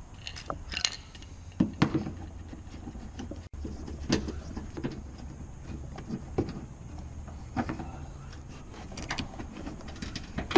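Irregular clicks, taps and scrapes of an 8 mm socket driver and hands working at a Fiat Punto's plastic wheel-arch liner and its fasteners, over a low steady background rumble.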